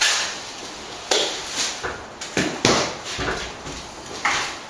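Steel plastering trowel scraping lime mortar out of a plastic bucket and laying it onto a brick wall: about half a dozen short scrapes and knocks at irregular intervals.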